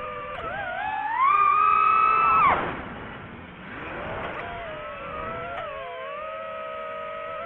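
Quadcopter drone's electric motors and propellers whining: the pitch climbs and the sound grows louder about a second in, then drops away sharply and settles into a lower, wavering steady whine.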